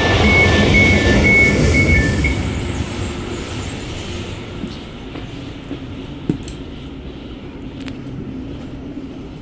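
A passenger train's door warning beeper sounds a repeated high beep, about two and a half beeps a second, for the first two seconds, signalling that the doors are closing. Under it the train rumbles loudly, then settles to a quieter, steady rumble, with a single sharp click about six seconds in.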